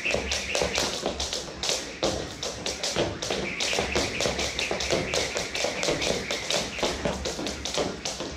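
Jump ropes skipping, the rope ticking against the floor in a fast, even rhythm of several taps a second.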